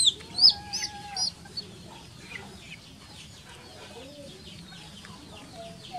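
Baby chick peeping loudly in distress: sharp, high, falling peeps about three a second. After about a second and a half they fade to fainter, scattered peeps.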